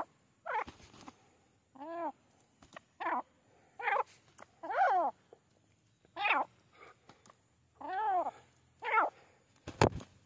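Grey francolin calling: short, pitched notes that arch up and down, repeated about once a second, nine in all. A sharp knock comes near the end.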